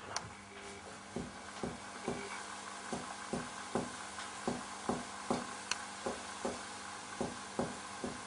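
Finger-on-finger percussion of the chest: a steady run of short taps, about two and a half a second, starting about a second in. The taps move down the right midclavicular line toward the dulled note where lung overlies the liver, which marks the height of the diaphragm.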